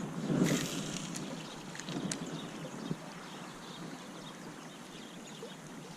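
Steady outdoor noise of a flowing stream and wind on the microphone, with a short louder rush about half a second in and a few faint clicks.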